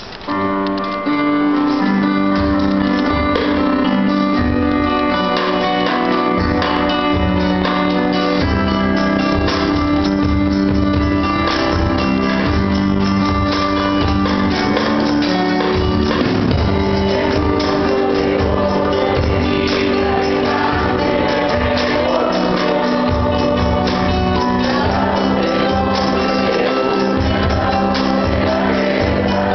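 Classical guitar playing chords in a small group with voices singing along; the music comes in at full level about a second in and runs steadily.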